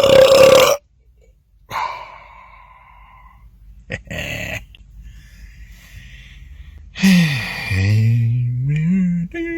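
A man's loud belch cuts off under a second in. After a pause and a couple of short, quieter throat sounds, a long, deep, growling belch-like voice sound runs for about two seconds, its pitch dipping and then climbing back.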